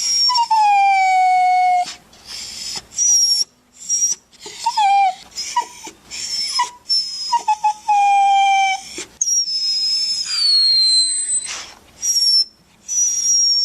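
Dog crying: a series of long, high-pitched whines, each about one to two seconds, most sliding down in pitch, broken up by short choppy whimpers.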